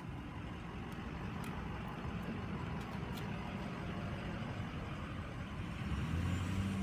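Steady rumble of a motor vehicle running, growing a little louder near the end.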